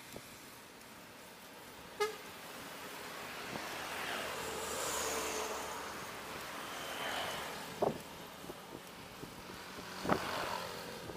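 Wind and road noise from a moving motorcycle, with other motorbikes passing and a short horn toot in the middle. There is a sharp click about two seconds in and a couple of knocks near the end.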